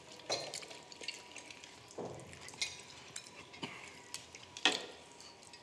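Mukbang eating sounds: seafood-boil food picked up and handled by hand and chewed, with wet squelchy noises and scattered soft clicks and taps of plates and utensils, one sharper click near the end.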